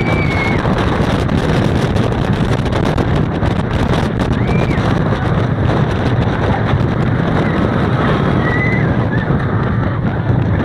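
El Toro wooden roller coaster train running at speed over its wooden track: a loud, steady rumble with wind rushing over the microphone. A few short high yells from riders rise and fall over it, near the start, midway and later on.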